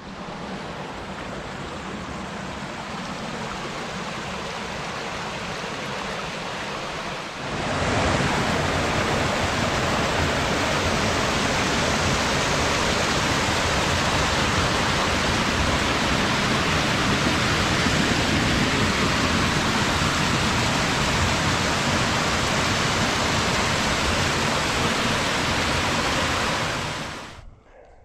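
Creek water running over rocks, then, about seven seconds in, a much louder steady rush as a small waterfall pours close by through a narrow cleft in the rock; it fades out near the end.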